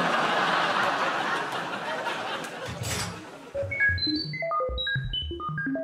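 Studio audience laughing, then a run of short electronic bleeps jumping between pitches. The bleeps are a cheap sci-fi machine sound effect for a brain-swap prop.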